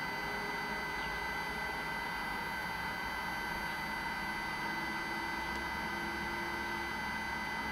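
Cordless Looftlighter X hot-air charcoal lighter blowing steadily into charcoal briquettes in its heating stage, an even rush of air with a high, constant whine from its fan.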